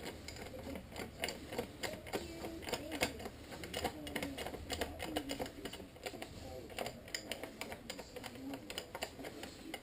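Irregular light clicks and taps of plastic motorcycle fairing panels and their fasteners being handled and fitted by hand.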